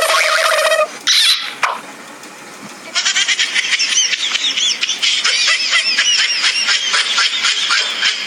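A short steady horn-like tone, then from about three seconds in a dense, continuous run of fast high chirps, like many birds twittering at once.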